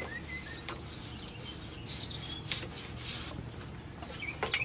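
Hands rubbing along the windshield frame and its newly fitted rubber molding: about four short, scratchy rubbing strokes, two to three seconds in.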